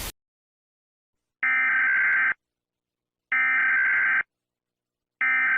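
Emergency Alert System SAME digital data bursts: three harsh, screechy buzzing bursts of electronic tone, each just under a second long, separated by about a second of silence, closing the alert after the spoken message.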